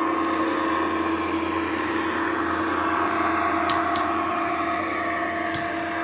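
Dapol OO-gauge Class 68 model locomotive's DCC sound decoder playing a recorded Class 68 diesel engine through the model's EM2 speaker: a steady engine drone as the model runs. Two sharp clicks come about three and a half and five and a half seconds in.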